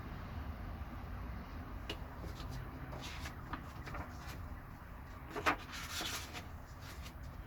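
Handling of a hardback book and its packaging: scattered light taps and clicks with a few short rustles or slides of paper and card.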